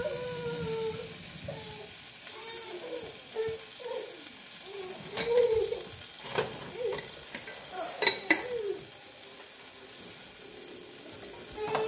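Dry, unpopped popcorn kernels rattling and sliding in an oil-free nonstick frying pan as the pan is moved on an electric coil burner, over a steady hiss, with scattered squeaks and a few sharp clicks about halfway through. None of the kernels has popped yet.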